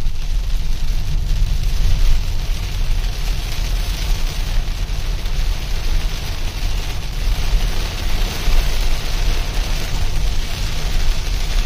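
Heavy rain hitting a moving car, a steady hiss over a constant low rumble of the road and engine.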